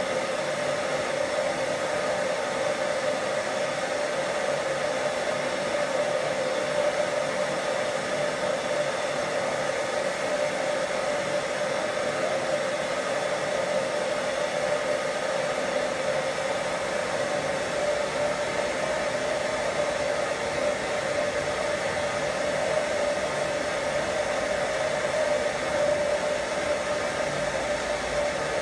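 Gas forge burner running with a steady, even rushing noise and a constant hum, unchanged while a titanium piece is heated in the flame.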